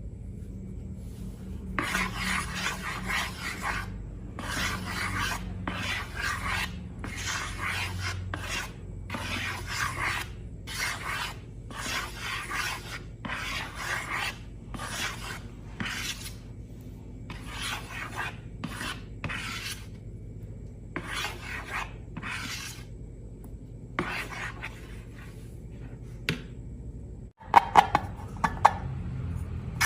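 Repeated rubbing or scraping strokes, about one a second, with a gap near the end followed by a few sharp clicks.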